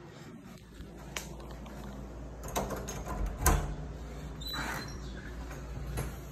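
A wooden door being opened by its metal handle: the latch clicks and the door knocks, a few separate clicks, the sharpest about three and a half seconds in.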